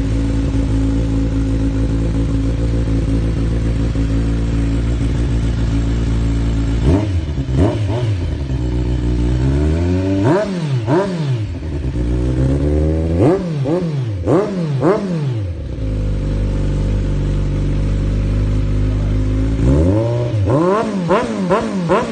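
Kawasaki Z1000's inline-four engine running through handmade titanium SC-Project CR-T slip-on mufflers: a steady idle, then throttle blips about seven seconds in, longer revs rising and falling between about ten and fifteen seconds, and a quick string of blips near the end.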